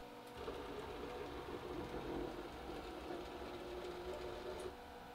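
Techno CNC router's servo motors and ball screws whirring as the gantry jogs across the table; the motion starts about half a second in and stops abruptly shortly before the end.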